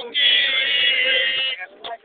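Male voices chanting a joke song, ending on one long held note that breaks off about a second and a half in.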